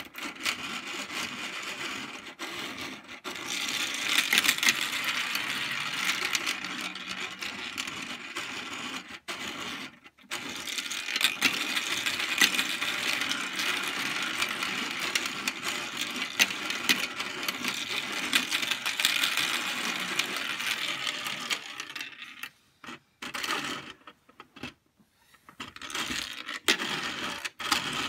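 Metal marbles rattling and clattering down the tracks of a 3D-printed PLA marble machine while its screw lift is turned by hand at the cap. The rattle is continuous, with a short break about ten seconds in and a few gaps a little before the end.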